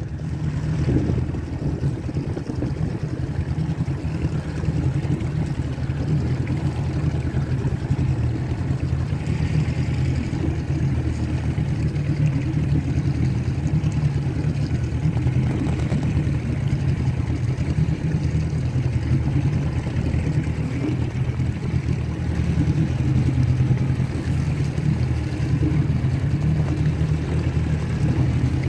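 A small boat's engine running steadily at cruising speed, a constant low drone, under the hiss of water and wind.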